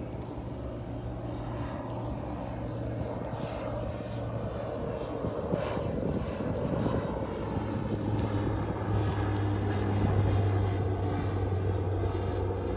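A steady engine drone, its pitch dropping a little about eight seconds in and loudest about ten seconds in, as of a motor passing by.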